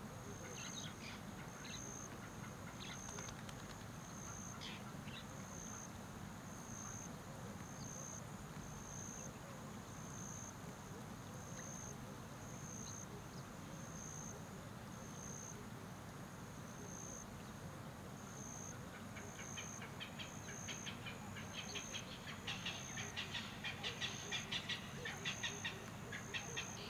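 Nature ambience: a cricket chirping at an even pulse, about once a second, over a low steady hum, with a fast chattering run of chirps growing louder in the last several seconds.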